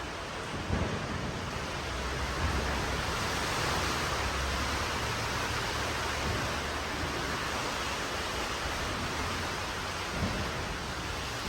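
Storm wind and rain: a steady rushing hiss with a low rumble underneath, swelling a little through the middle, with a light knock about a second in.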